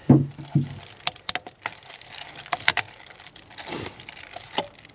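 Scattered light clicks and knocks of small objects being handled, with a brief soft rustle near the end.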